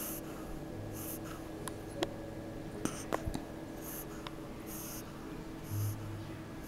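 Sleeping puppy snoring softly, short breathy snores roughly once a second. A few faint clicks come about two to three seconds in.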